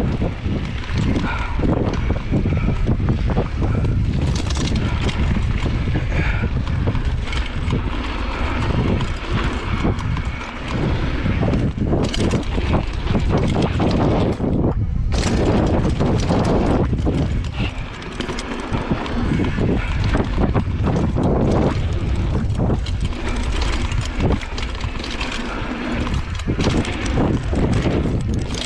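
Mountain bike riding a dirt jump trail: wind rushing over the microphone, tyres rolling on dirt and the bike rattling, with frequent sharp knocks from bumps and landings.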